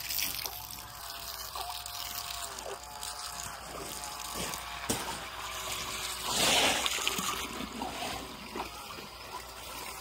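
Shallow stream water trickling steadily, with a brief louder rush of water about six and a half seconds in.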